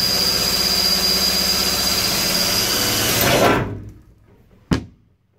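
Cordless drill running steadily with a high motor whine as it bores a wire hole up through the van's sheet-metal roof. It winds down and stops after about three and a half seconds, and a single sharp knock follows about a second later.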